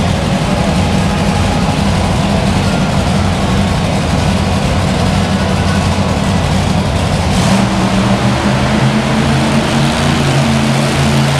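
Monster truck engine running loud and steady at low revs as the truck rolls slowly; about seven seconds in, its note shifts and settles into a clearer, steadier pitch.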